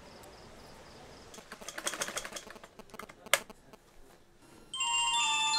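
A quick run of light clicks and taps lasting about a second and a half, then one sharp click. Near the end a bright chiming melody of short stepping tones starts, louder than the clicks.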